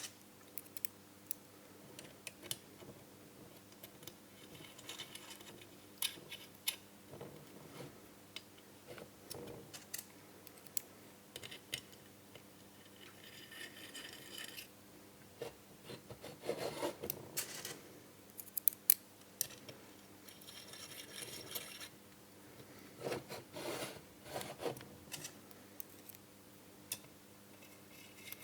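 Small metal parts of a motorcycle clutch basket being handled and fitted together: scattered light clicks and taps with short scraping and rubbing passages, a few sharper clicks in the middle.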